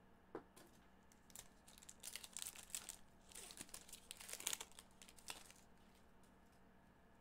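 A 2023 Panini Prizm Football retail card pack's wrapper being torn open and crinkled in gloved hands. A single click comes near the start, then a run of crackles lasting about three seconds, loudest just past the middle.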